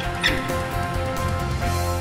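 Background music: sustained tones over a pulsing low bass.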